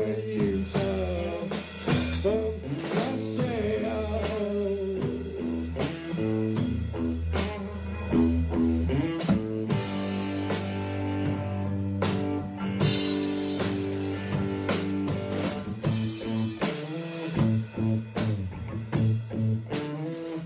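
Blues played on a drum kit with electric guitar and bass: steady drum and cymbal hits under guitar lines that bend in pitch, over a walking bass. A cymbal wash swells about thirteen seconds in.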